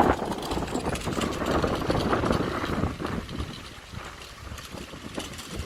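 Strong wind buffeting the microphone: an irregular rumbling gusty noise, easing somewhat after about three seconds.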